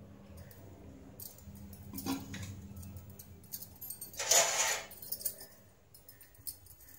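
Faint kitchen handling sounds around an aluminium pot on a gas stove: scattered light clicks and clinks over a low steady hum, with a short louder rustle about four seconds in.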